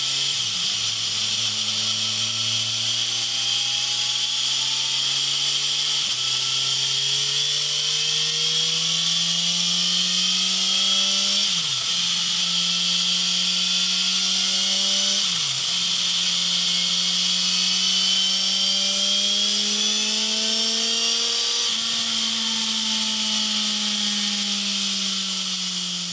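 BMW S1000XR inline-four engine through a MIVV Suono slip-on exhaust, accelerating through the gears: the pitch climbs and drops sharply at each of several upshifts, then eases down near the end as the revs fall. A steady high hiss runs underneath.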